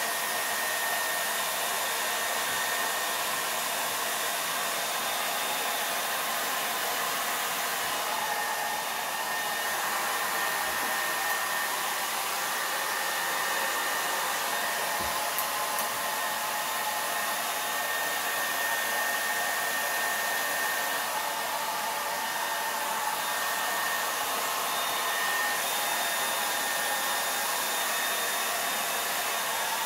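Handheld hair dryer blowing steadily, a rush of air with a constant high whine from its motor.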